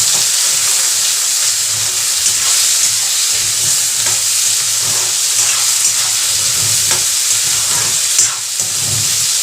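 Hot oil sizzling steadily in a kadhai as onion, garlic and potatoes fry, with a spoon scraping the pan as it is stirred.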